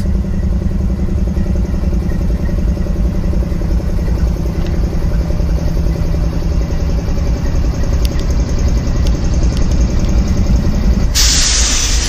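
Idling diesel-electric locomotives, a GE C44-9W and an EMD SD60M, giving a steady low engine drone. About eleven seconds in, the drone gives way to a sudden loud hiss lasting about a second.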